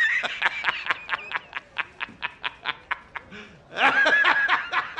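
Hard, high-pitched laughter. A long shrieking note opens it, then comes a rapid run of short 'ha' bursts, about five a second, and a second shriek about four seconds in.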